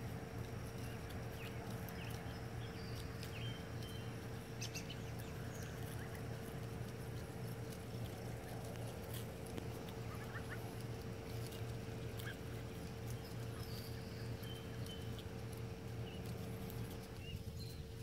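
A group of Embden goslings feeding on fallen apples: many small clicks of pecking and munching, with occasional short high peeps. A steady low hum runs underneath.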